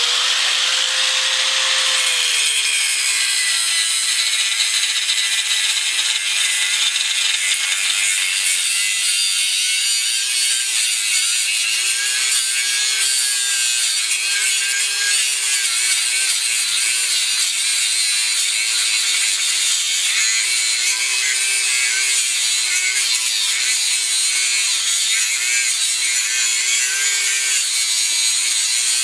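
Harbor Freight Drillmaster 4½-inch angle grinder cutting through metal: a steady grinding hiss over the motor's whine. The whine drops in pitch about two seconds in as the blade bites and then wavers up and down as the pressure on the cut changes.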